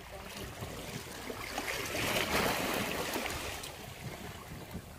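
Shallow surf washing in on the beach, swelling about two seconds in and then easing off.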